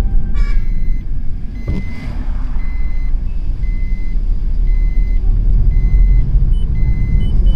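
Steady low rumble of a moving vehicle on the road, with a short, high electronic beep repeating about once a second from a couple of seconds in.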